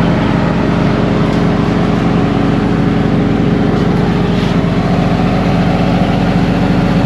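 An engine running steadily at constant speed, with a fast, even pulse and no change in pitch.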